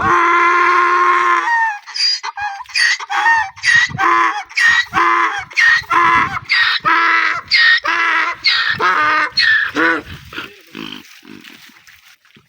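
Donkey braying: one long held call, then a quick run of alternating hee-haw calls that weaken and die away near the end.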